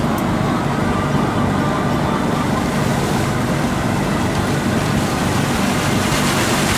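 Large belt-driven exhaust fans running steadily: a loud, even rushing of air with a low motor hum underneath.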